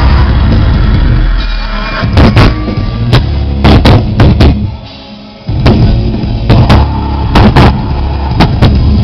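Live rock band playing loud and distorted through the PA, dominated by heavy drum and cymbal hits over thick low guitar and bass. The sound drops away for about half a second around five seconds in, then the full band crashes back in.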